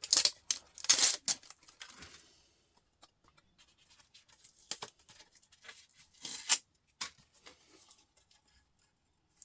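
Plastic covers and parts of a laptop being pulled off and handled: two loud scraping, ripping bursts in the first second and a half, then scattered clicks and short rustles, with two more brief bursts later on.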